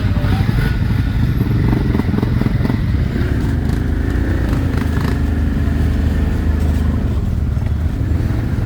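ATV engine running steadily under way, with a few short knocks and rattles over it.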